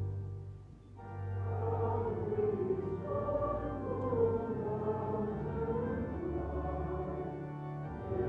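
Church hymn sung by many voices with organ accompaniment. A held organ chord stops at the start, and after a short pause of about a second the organ and singers begin the next line.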